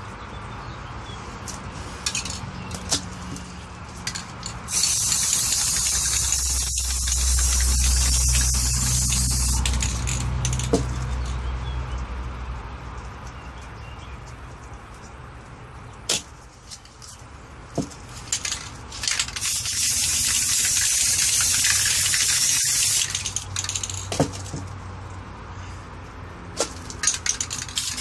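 Aerosol spray-paint cans spraying in two long hisses: one starting about five seconds in and lasting some seven seconds, and another later lasting about four seconds. Short sharp knocks and clicks fall between the two hisses.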